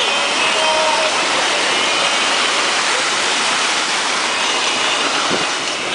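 Rushing water with a steady, loud roar.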